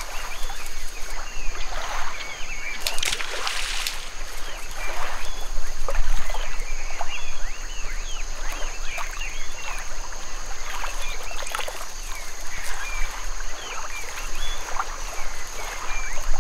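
Water splashing and trickling as a swimming diving bird shakes and works a fish in its bill, with a louder splash about three seconds in. A steady high insect drone runs underneath.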